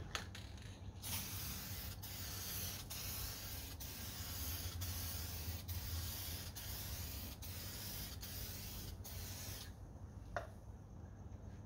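Aerosol can of clear enamel spraying a clear coat onto a sanded headlight lens: a steady hiss in a run of passes with brief breaks between them, starting about a second in and stopping about ten seconds in.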